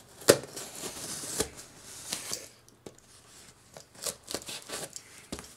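A blade slitting the packing tape on a cardboard box, in short scraping strokes, with a sharp click about a quarter second in.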